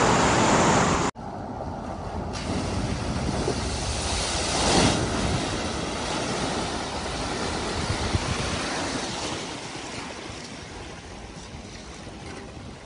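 Rushing river water for the first second. After a sudden cut comes the churning, splashing water of an SUV driving through a flooded ford, building to a loud surge of its bow wave about five seconds in. The sound then settles into quieter sloshing as the car wades slowly.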